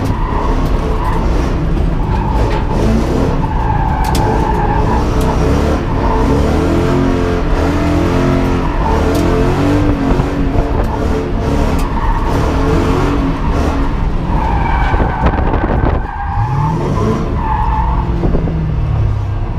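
Ford Mustang engine heard from inside the cabin, revving hard under heavy throttle, its pitch rising and falling, while the bald tyres skid and squeal as the car slides. About sixteen seconds in, the engine briefly drops off, then revs up again steadily.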